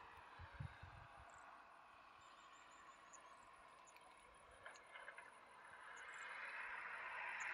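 Faint outdoor ambience: insects chirping in a steady, fast high-pitched pulse, with a soft hiss that grows louder in the last second or two.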